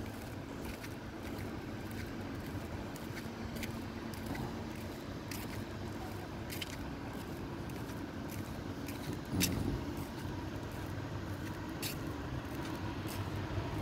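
Outdoor urban background: a steady low hum and rumble, with a few scattered faint clicks.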